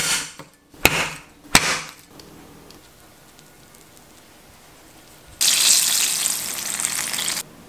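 A Chinese cleaver striking shrimp on a wooden cutting board, three hard chops in the first two seconds. About five seconds in, stuffed eggplant slices sizzle as they deep-fry in hot oil, a loud even hiss that cuts off suddenly about two seconds later.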